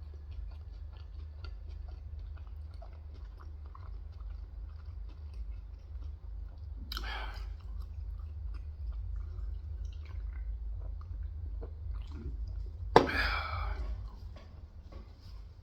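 Close-up chewing of Korean fried chicken: a run of small wet clicks and crunches over a steady low hum. Two louder, longer noisy sounds come about seven and thirteen seconds in; the second starts with a sharp click and is the loudest.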